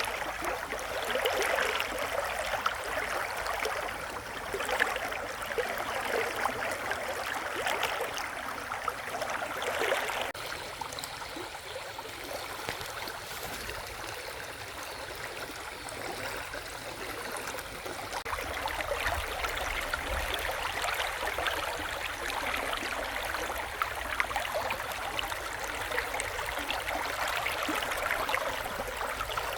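Shallow river running, a steady babble and splash of flowing water. It becomes a little quieter and smoother about ten seconds in, then fuller again later.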